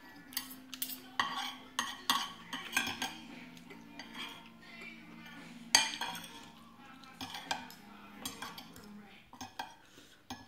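Metal spoon and fork scraping and clinking on a glass plate, gathering up the last of the rice. The clinks come irregularly, the loudest a little past halfway.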